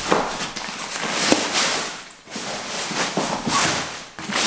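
Waterproof fabric rain cover rustling and swishing as it is pulled and smoothed down over a tackle bag, with a few sharp crinkles and a short pause about two seconds in.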